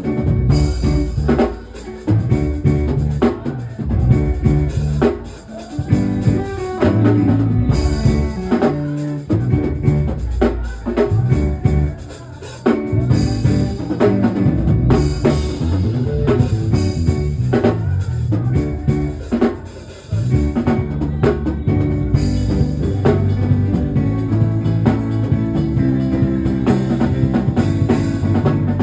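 Instrumental music with a drum kit, bass and guitar playing a steady beat.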